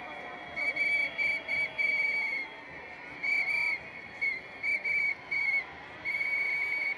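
A pea whistle blown in a string of short and longer warbling blasts, about a dozen in all, over the low noise of a large crowd.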